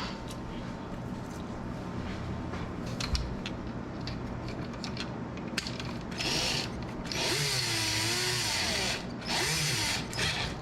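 Power drill-driver running in three short bursts in the second half, the middle one the longest, its motor pitch wavering under load as it drives screws. Light handling clicks come before it.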